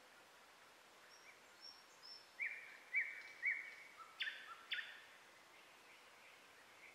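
A songbird singing a short phrase of quick chirps, loudest in the middle with two sharper notes near its end, over a faint steady outdoor hiss.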